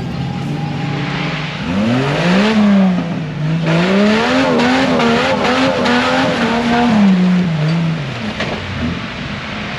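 Off-road 4x4's engine revving up and down under load, its pitch climbing about two seconds in, wavering, then dropping back near the end.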